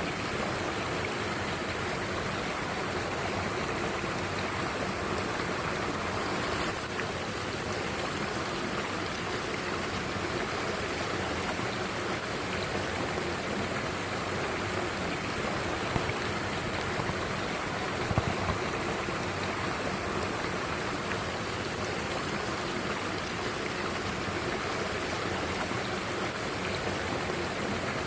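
Mountain stream water rushing steadily, with a couple of brief knocks a little past the middle.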